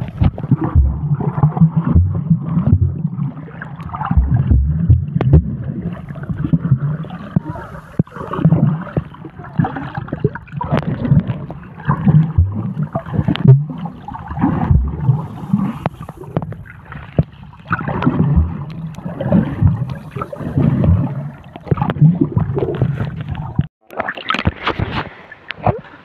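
Muffled sloshing and gurgling of seawater around a submerged phone microphone, with irregular low thumps as the water and the hand holding the phone move. Near the end the sound breaks off briefly and turns brighter as the phone comes up out of the water.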